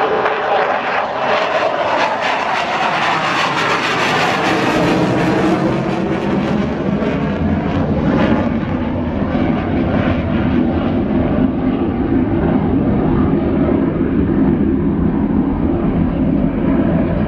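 A military jet flies past loudly and climbs away, its engine noise growing duller as it recedes and the hiss fades out of it.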